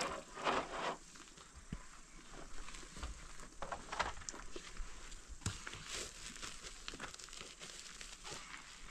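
Faint crinkling and rustling with scattered light clicks and taps from things being handled.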